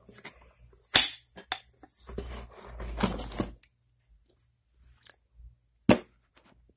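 Handling sounds on a workbench around a small engine: a few sharp clicks and clinks, about a second in, again soon after and near the end, with rustling and scraping between about two and three and a half seconds.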